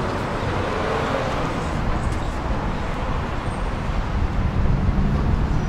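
Steady road traffic noise, mostly a low rumble, with no single sound standing out.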